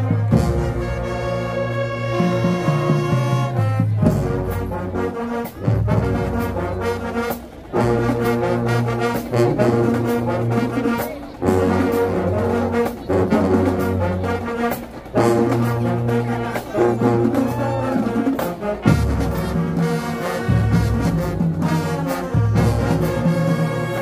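High school marching band playing loud, brass-heavy music: trombones and trumpets over low brass bass notes, with drum hits marking the beat. The band breaks off briefly a few times, around 5, 7, 11 and 15 seconds in.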